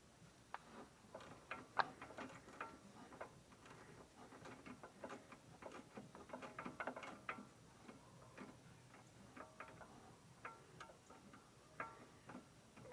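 Hand ratchet clicking in uneven runs of faint ticks as it is swung back and forth on a sway bar end link nut. The ratchet is misbehaving despite fresh grease and is missing its cover and screw.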